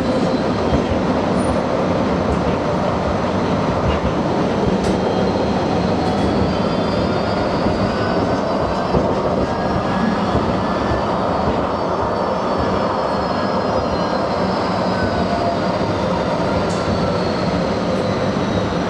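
Interior of a Bombardier Flexity 2 light rail tram in motion: a steady running rumble from wheels and drive. Through the middle a faint whine rises and then falls in pitch.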